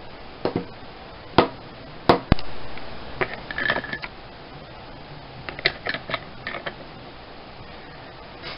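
Scattered sharp clicks and knocks of a small metal model engine and a hex key being handled and set down on a cutting mat. The loudest two come about two seconds in, and there is a further cluster around six seconds.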